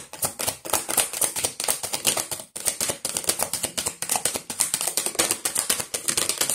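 Angel Guide Oracle cards being shuffled by hand: a fast, dense stream of card clicks and flicks, with a short break about two and a half seconds in.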